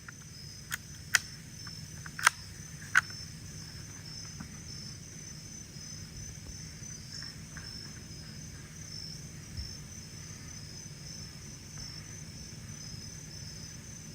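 A steady night chorus of crickets sings throughout. Four sharp clicks in the first three seconds come from the rifle being handled and reloaded.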